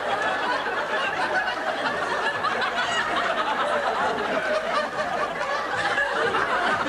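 Studio audience laughing, a dense crowd laugh at a steady level throughout.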